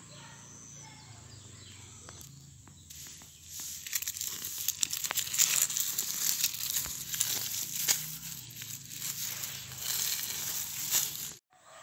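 Dry onion leaves and roots rustling and crackling as onions are pulled by hand from dry soil. After a quieter start, the crackling begins about three and a half seconds in, with many sharp snaps, and cuts off just before the end.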